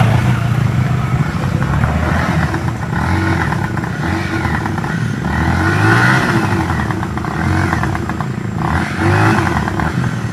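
Small motorcycle engine running under way, its pitch rising and falling with the throttle.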